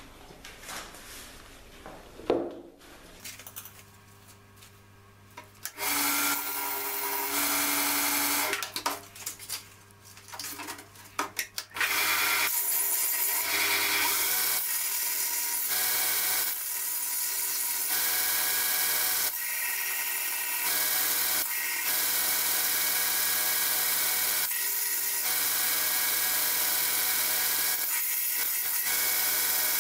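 Belt grinder grinding a steel san mai knife blade to shape the tang: a steady grinding hiss comes in about six seconds in, in a few short touches at first and then almost continuous, with brief breaks as the blade is lifted off the belt. A single knock near the start.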